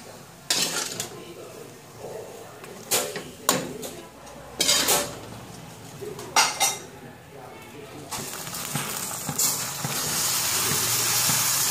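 Metal ladle knocking and scraping against a stainless steel pot while stirring pork and bitter gourd, about five sharp clinks over the first seven seconds. From about eight seconds in, water is poured into the pot with a steady hiss that grows louder toward the end.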